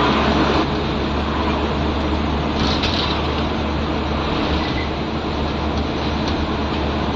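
Scania N94UB bus's nine-litre five-cylinder diesel engine running under steady load, with a constant low engine note and road noise.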